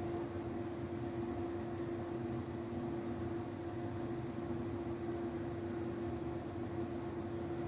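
Steady hum of running equipment, one constant mid-pitched tone over a low rumble, with three faint mouse clicks: about a second and a half in, a little past halfway, and near the end.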